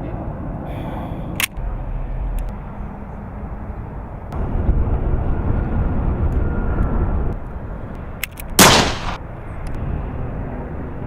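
A steady low rumble like a running vehicle engine, with a sharp click about a second and a half in and one loud bang, gunshot-like, near the end.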